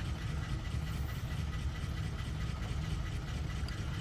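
Steady low mechanical rumble with no break or change, like an engine idling.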